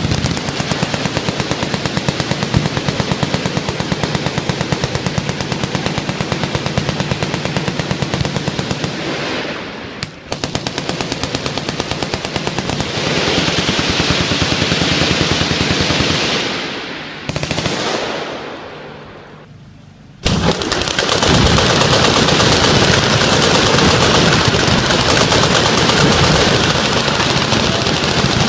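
Full-auto machine-gun fire from several guns at once, a dense, near-continuous stream of overlapping shots. It eases briefly about ten seconds in, dies down after about sixteen seconds except for one short burst, then starts again suddenly and at full force about twenty seconds in.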